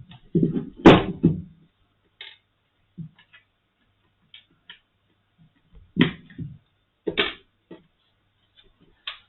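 Handling noise from hand tools and the case of a Brüel & Kjær 2250 sound level meter: a cluster of knocks and clatter about a second in, light ticks after it, then single knocks around six, seven and nine seconds in.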